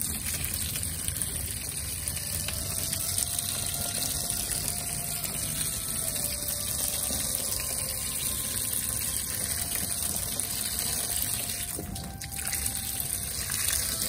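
Water jetting from the pinched end of a garden hose and splashing steadily onto an LED display panel's enclosure and a plastic tarp below, a continuous hiss with a slight dip near the end.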